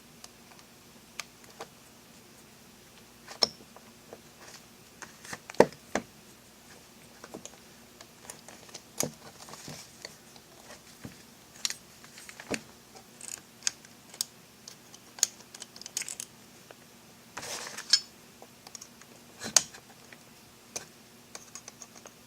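Small metal lock parts being handled and fitted by hand: irregular light clicks, taps and clinks of a lock cylinder and knob housing, with a brief scraping rustle about two-thirds of the way through.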